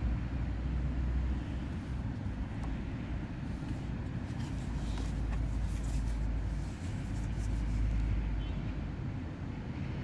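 Steady low rumble of outdoor background noise, with a few faint rustles a few seconds in.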